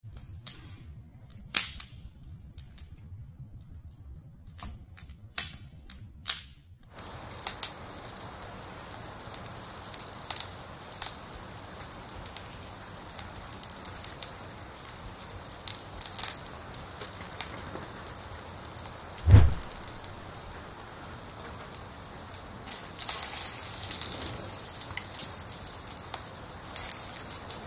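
Wood fire crackling, with irregular sharp pops and snaps; after the first few seconds they sit over a steady faint hiss. A single dull thump comes about two-thirds of the way through.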